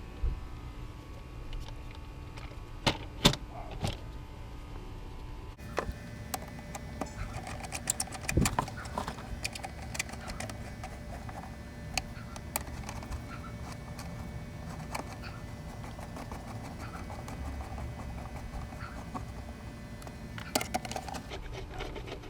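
Scattered clicks, knocks and rattles of parts and tools being handled over a low steady hum, with an abrupt change in the background about five and a half seconds in.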